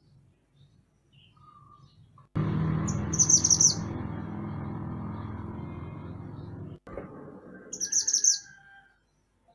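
Mantenan gunung songbird giving two short bursts of high, rapid chirps a few seconds apart. Under the first burst a loud steady low hum starts abruptly about two seconds in and cuts off just before the second burst.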